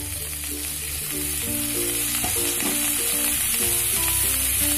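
Hakka noodles and vegetables sizzling in oil in a hot kadai on high flame, over instrumental background music with a melody of short, stepped notes.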